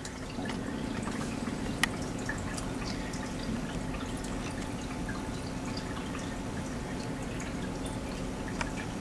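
Steady low hum of room noise with scattered faint ticks and one sharp click about two seconds in.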